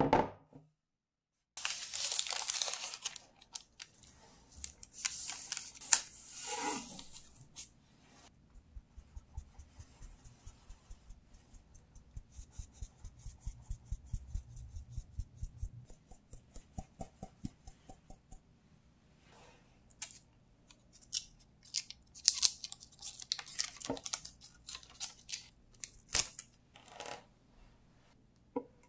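Powdered sugar being sifted through a fine-mesh sieve onto a tray of set agar jelly: rustling scrapes of sugar in the sieve, and a long run of quick, light taps on the sieve to shake the sugar through.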